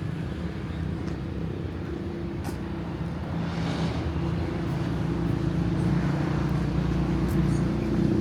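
A motor vehicle engine running steadily with an even, low hum, against outdoor traffic noise.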